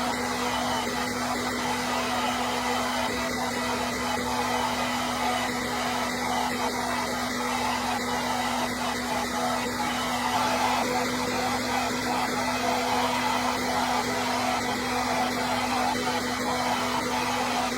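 Hair dryer running steadily: an even blowing hiss over a constant motor hum.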